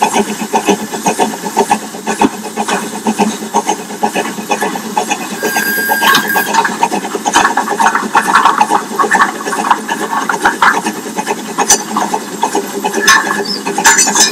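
Crampton-type 4-2-0 steam locomotive running along the line: a fast, dense clatter of exhaust beats and rattling running gear.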